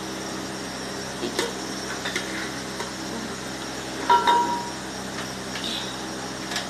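Steel ladle knocking and clinking against an aluminium pot a few times while stirring whole spices in oil, one clink about four seconds in ringing briefly, over a steady hum.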